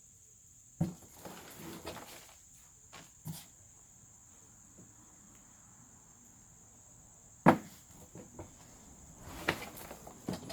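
Scattered knocks and rustling from hands working through soil and handling containers, the loudest a sharp knock about two-thirds of the way in and a run of knocks near the end, over a steady high-pitched background hum.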